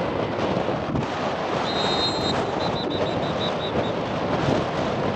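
Wind buffeting an outdoor microphone, with a steady rumbling haze of noise. About two seconds in a brief high whistle tone sounds, then a quick run of short high pips.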